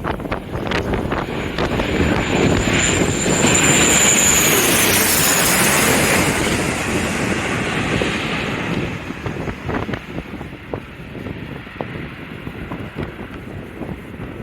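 Airliner passing low overhead on landing approach: engine noise swells to its loudest mid-way, with a high whine that drops in pitch as it passes, then fades. Strong wind buffets the microphone throughout.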